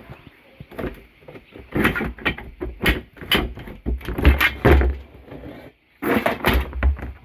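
A run of knocks and rattles with a few heavy dull thumps, from things being handled, with a brief pause a little before the end.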